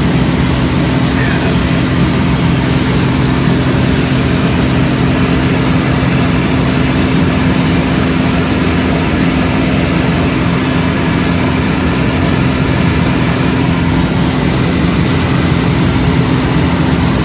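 Pitts aerobatic biplane's engine and propeller heard from the cockpit in flight: a steady, even drone of low tones with a constant rush of air over it.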